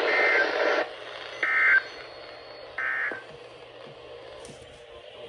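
Three short warbling data bursts of NOAA Weather Radio SAME tones, about a second and a half apart: the end-of-message signal that closes a weather radio test broadcast. Receiver hiss is heard at first and cuts off just under a second in.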